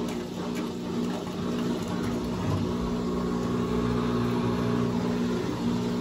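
Midea top-load washing machine spinning its drum on the rinse cycle: a steady machine hum with water swishing in the tub.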